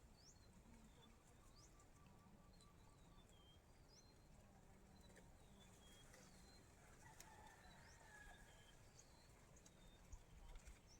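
Faint bird calls: short high chirps that drop in pitch, repeating about once a second over a quiet background, with a few soft low thumps near the end.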